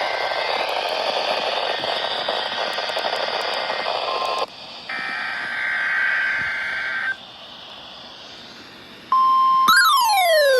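NOAA Weather Radio weekly test over a receiver: hissy, static-laden radio audio, then a two-second warbling burst of SAME digital header tones, a stretch of quieter hiss, and near the end the steady 1050 Hz warning alarm tone cutting in loudly, with a rising-and-falling siren tone sweeping over it.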